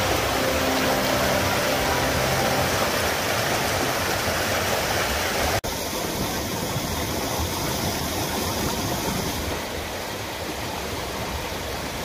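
Aber Falls waterfall: a steady, loud rush of water falling down a rock face into a foaming pool. The rush cuts out for an instant about five and a half seconds in, then carries on a little quieter.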